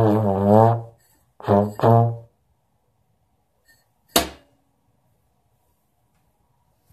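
Trombone playing low notes: a long wavering note, then two short notes, stopping about two seconds in. A single sharp knock about four seconds in.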